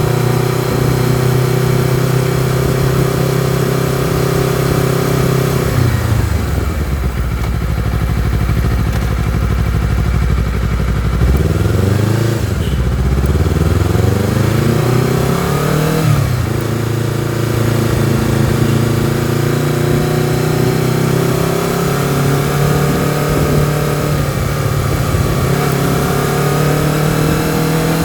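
Honda CBR250RR motorcycle engine and exhaust under way, heard from the rider's position. It holds steady revs, drops off about six seconds in, climbs in pitch a few times between about twelve and sixteen seconds, then holds steady revs again.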